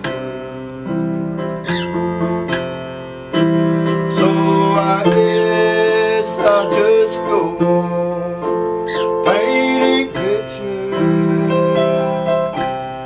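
Electronic keyboard played in a piano voice: slow, held chords of a gospel ballad, an instrumental stretch between sung lines, with a few short sliding sounds over it.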